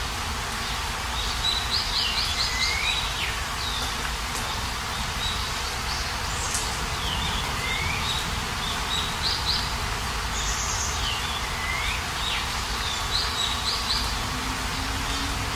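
Steady rain falling, with a songbird repeating a short phrase of quick high notes ending in a slurred note about every three to four seconds.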